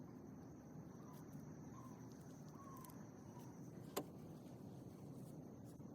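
Quiet night-time outdoor background: a low steady hiss with a thin high whine that fades out partway, a few faint short chirps early on, and one sharp click about four seconds in.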